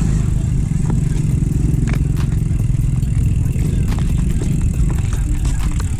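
A motor vehicle engine running at a steady pitch, with a few light clicks and rattles on top.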